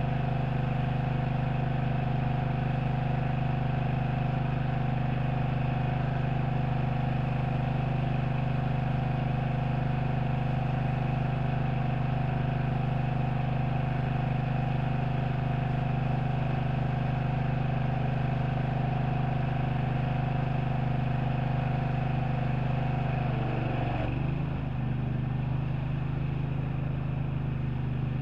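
An engine running steadily, with a constant hum. About 24 seconds in its sound changes: the pitch dips briefly and the higher part of the hum drops away, then it carries on steadily.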